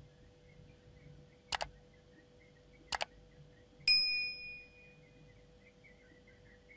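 Subscribe-button animation sound effect: two quick double mouse clicks about a second and a half apart, then a notification bell ding a little before four seconds in that rings out and fades.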